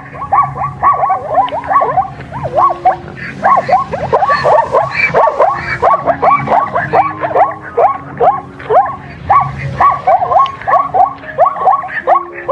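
Puppies yipping and whimpering in a rapid, continuous string of short high calls, about three a second.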